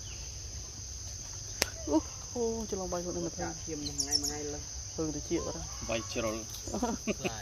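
Insects droning steadily on one high pitch. A person's voice talks through the middle and latter part, with a sharp click about a second and a half in and a short high chirp around the middle.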